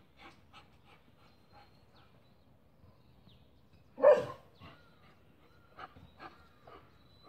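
A dog gives one loud bark about four seconds in, among faint short chirps.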